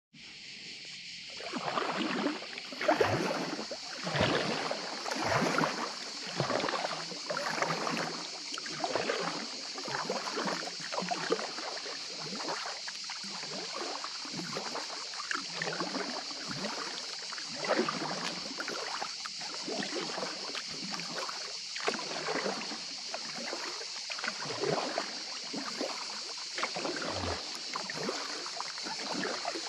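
Kayak paddle strokes in calm water, a short splash about once a second as the blades dip and pull, over a steady high hiss.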